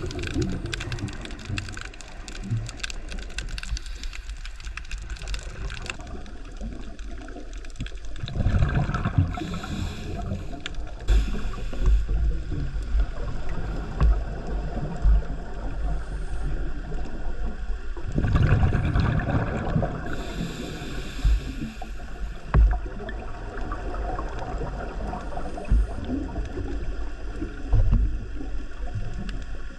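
Scuba diver's regulator breathing heard underwater: exhaled bubbles gurgle out in surges roughly every nine seconds over a constant low rumble.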